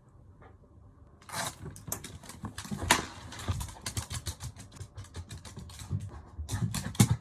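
A Shiba Inu chewing and crunching something, a dense run of irregular sharp clicks that starts about a second in, with a louder thump near the end.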